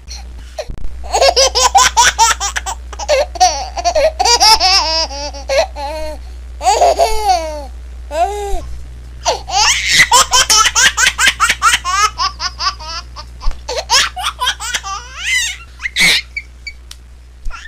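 A baby laughing in long bouts of quick, high-pitched repeated pulses, starting about a second in, with brief pauses for breath between the bouts.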